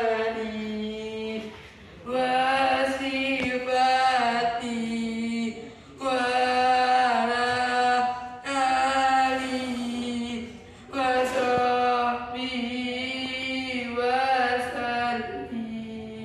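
A woman's unaccompanied voice singing a slow chant in long, wavering held notes, phrase after phrase, with short breaks for breath every two to four seconds.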